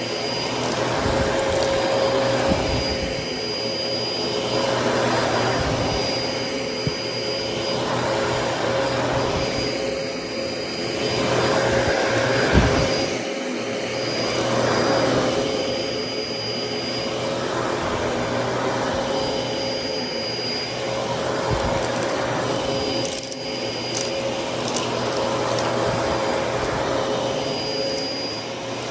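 Dyson DC33 upright vacuum cleaner running with a steady motor whine. Its noise swells and fades every two seconds or so as it is pushed back and forth, with a few sharp ticks.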